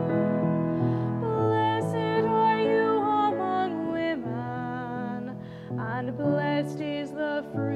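A soprano singing with vibrato over piano accompaniment.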